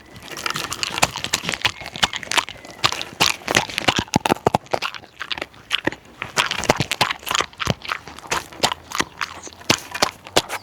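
A dog chewing crunchy dog treats right at a close-held microphone: a dense, irregular run of crunches and bites.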